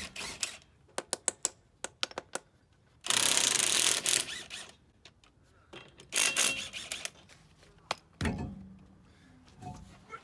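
Socket wrench ratchet clicking and metal clinks while wheel lug nuts are worked loose or run on. Two fast runs of clicking come about three and six seconds in, and a dull thump follows about eight seconds in.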